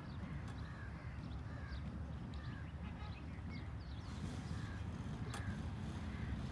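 Birds calling over and over above a faint low rumble, which grows a little louder in the second half as a diesel-electric locomotive running light approaches from a distance.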